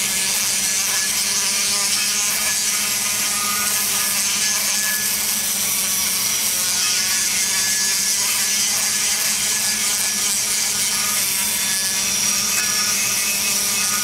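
High-speed die grinder running steadily with its bit cutting into the aluminum exhaust port of an LS cylinder head, a continuous high whine over grinding hiss as the port is smoothed and roughed in around the valve seat.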